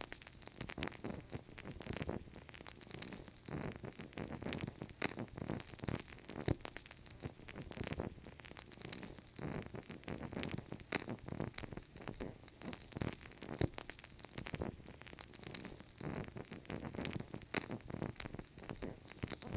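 Fireplace fire crackling, with frequent sharp pops and snaps over a low rumble.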